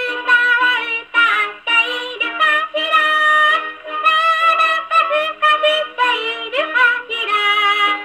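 A Victor VV-50 wind-up portable gramophone plays a 78 rpm shellac record of a song: a singing voice with vibrato over instruments. The sound is thin and boxy, with no bass, as is typical of acoustic reproduction through the soundbox and horn.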